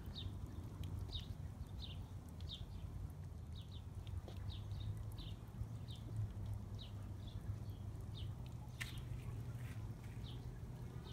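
A bird chirping over and over: short, high notes that drop in pitch, about two a second.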